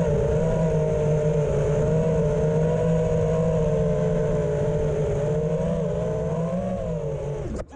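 FPV quadcopter's brushless motors and propellers (iFlight Xing 2207 2450kv motors on an Armattan Rooster) heard from the onboard camera, a steady buzzing whine whose pitch wavers gently with throttle as it hovers and descends. It cuts off suddenly near the end as the quad lands and the motors are disarmed.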